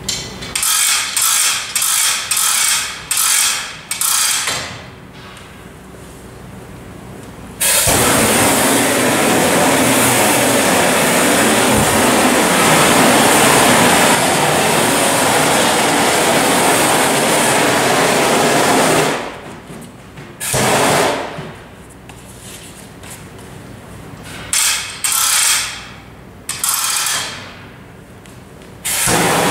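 Ripack gas hose reel ratcheting in quick runs of clicks as the hose is pulled off it. Then the Ripack heat shrink gun's gas burner blows with a loud, steady rush for about eleven seconds. More short runs of ratchet clicks follow, and the burner starts again near the end.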